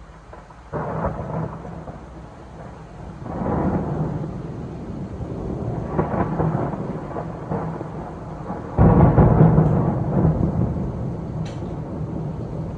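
Thunder in a storm: four rumbling peals a few seconds apart. The loudest breaks with a sudden crack about nine seconds in, and each rolls on for a second or more.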